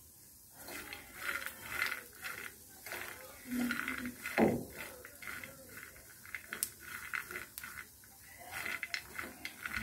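Peanuts rattling and scraping against a non-stick frying pan as they are stirred with a silicone spatula, in irregular bursts, with one heavier knock a little after four seconds in.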